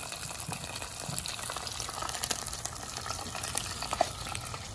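Coated squirrel meat deep-frying in a stainless steel pot of hot oil: a steady, dense sizzle and crackle of bubbling oil, with one sharper pop about four seconds in.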